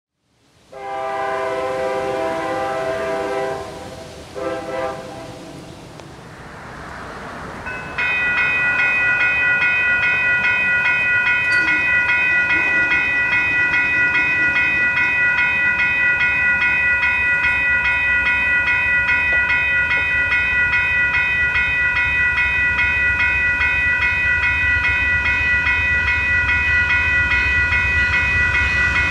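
Train horn of an Amtrak P42DC locomotive, one long blast followed by two short ones. About eight seconds in, the crossing's electronic warning bells (a WCH Type 1.5 and a GS Type 3 e-bell) start ringing steadily with an even repeating strike. A low rumble grows beneath them near the end as the train approaches.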